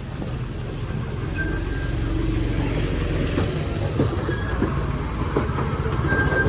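Small narrow-gauge tourist trolley rolling along its track: a low rumble that grows louder, with a few brief wheel squeals and clicks from the rails.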